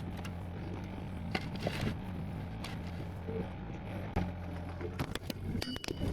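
An engine idling steadily, with a cluster of sharp knocks and clatter about five to six seconds in as the camera falls over.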